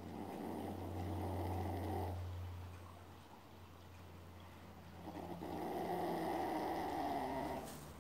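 A dog snoring in its sleep: two long, rattly snores about five seconds apart, with quieter breathing between them.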